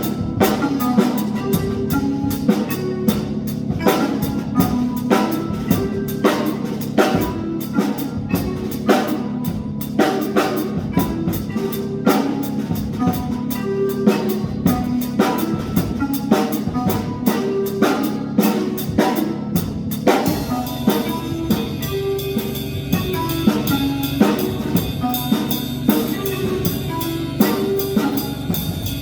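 Drum kit played freely over an electronic dance-style backing track of repeating pitched synth notes. About two-thirds of the way through, the sharp strikes thin out and a steadier high wash takes over.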